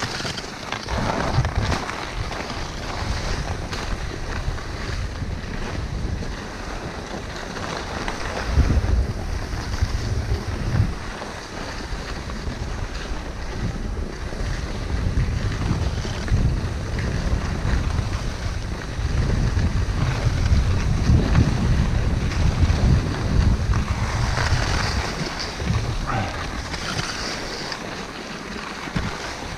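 Wind buffeting the microphone as the skier descends, with skis hissing and scraping over packed, groomed snow. The low rumble of the wind swells in gusts, heaviest about a third of the way in and again past the middle.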